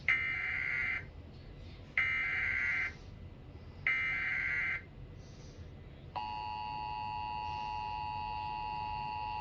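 Emergency Alert System SAME header: three bursts of screechy digital data tones, each just under a second long and about a second apart, carrying the coded header for a Required Monthly Test. About six seconds in, the steady two-tone EAS attention signal starts and holds.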